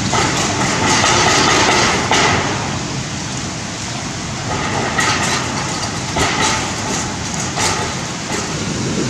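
Cyclone-force wind and heavy rain, a steady loud rush that swells in gusts, strongest about a second in and again in the second half. A few faint knocks or rattles come through during the later gusts.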